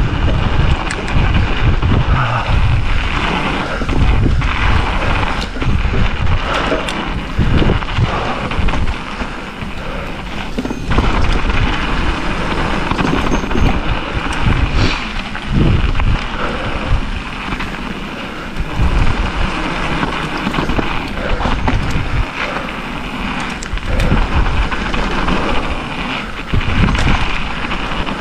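Mountain bike rolling fast down a frozen gravel trail: wind buffets the microphone in a heavy, uneven rumble over constant tyre noise, with frequent knocks and rattles as the bike hits bumps.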